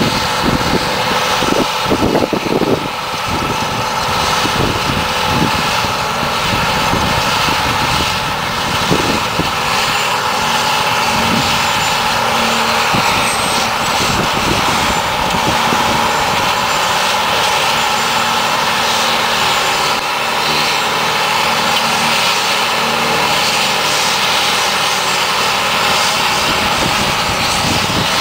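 New Holland 2025 self-propelled forage harvester running under load while chopping grass silage: a steady engine drone with a high steady whine over it.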